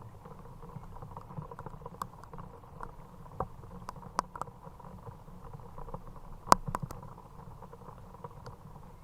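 Steady rain patter with scattered sharp taps and knocks, the loudest about six and a half seconds in.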